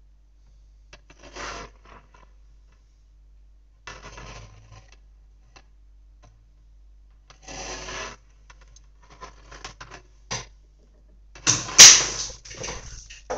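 A circuit board being slid and turned on a hard desktop: several short scraping rubs a few seconds apart, the loudest near the end as it is spun fast, with a sharp click among them.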